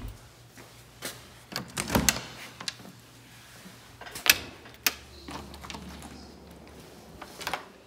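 An interior door being handled and opened: scattered sharp clicks and knocks of the knob and latch, the sharpest about four and five seconds in.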